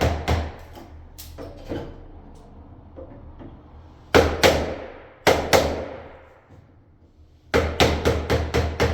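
Hammer blows on a wood chisel cutting a deadbolt mortise into a hardwood door edge. There are a few sharp strikes at first, two pairs of blows in the middle, and then a quick run of about three blows a second near the end.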